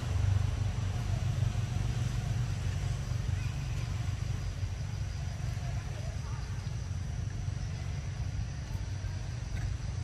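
A low, steady outdoor rumble that flickers constantly, with no clear event standing out.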